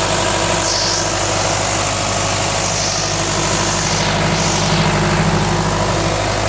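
New Holland C190 track skid steer's diesel engine running steadily with its compartment open, in good running order.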